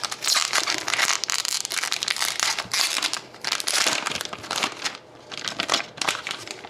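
A trading card pack's wrapper being torn open and crinkled by hand, in dense crackling bursts that thin out after about five seconds.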